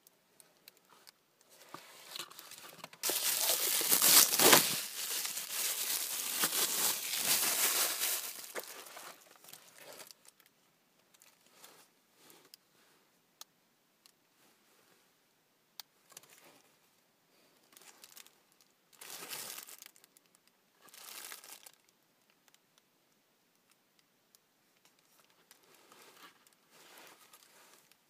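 Crinkling and rustling from unwrapping and handling a flashlight stun gun and its nylon holster. It starts about three seconds in and runs for about seven seconds, then comes back as three short rustles later on.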